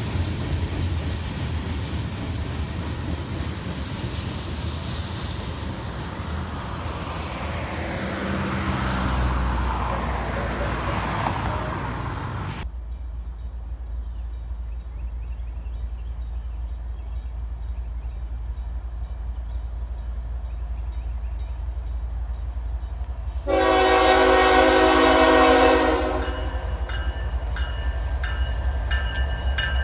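A freight train's rumble gives way to a low, steady diesel rumble from approaching Norfolk Southern freight locomotives. About two-thirds of the way in, a locomotive air horn sounds one long chord-like blast of about two and a half seconds, the loudest sound here.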